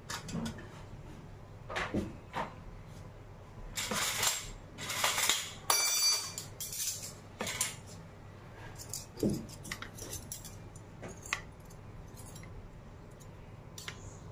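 Stainless-steel spoons clinking and rattling against a steel plate as they are set one by one into small bowls of peas: scattered separate clinks, with a louder stretch of rattling and scraping around the middle.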